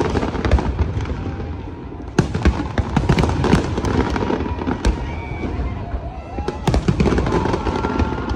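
Fireworks display bursting overhead: rapid strings of bangs and crackles over a low rumble, with dense flurries about two seconds in and again near the end.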